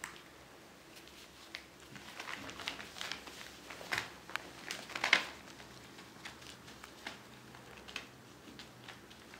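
Plastic sheeting crinkling and crackling under a playing kitten as it rolls and pounces, in irregular scattered crackles. A louder flurry of crackles comes about four to five seconds in, as the kitten pounces.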